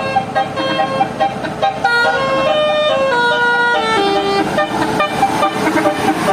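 Bus telolet Basuri multi-tone musical horn playing a tune: loud held notes that step from pitch to pitch every fraction of a second, dropping to a lower held note about four seconds in.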